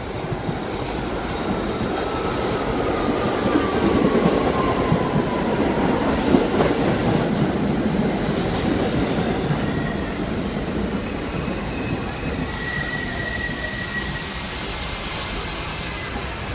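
Kawasaki-built R68A subway train pulling into a station and slowing. The rumble of wheels on rail grows louder as it comes alongside, with a whine falling in pitch as it brakes and a brief high squeal about three-quarters of the way through.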